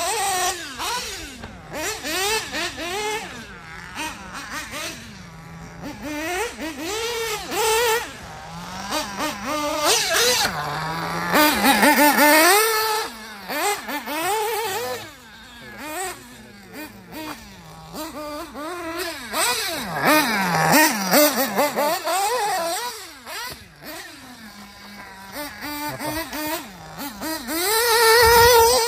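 Mugen MBX7R 1/8-scale nitro buggy's Picco P3R engine revving up and dropping off again and again as it laps the track, its pitch rising and falling every second or two. It is loudest near the end as the buggy comes close.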